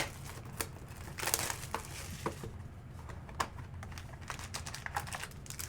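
A sealed box of Spectra football trading cards being opened by hand: crinkling wrapper and cardboard rustling, with scattered short clicks and snaps.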